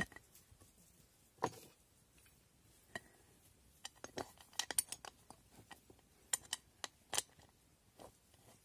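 Aluminium pressure cooker being closed: the lid set in place and the clamp bar swung over and screwed down, giving a string of sharp metal clicks and clinks, thickest about four to five seconds in and again near seven seconds.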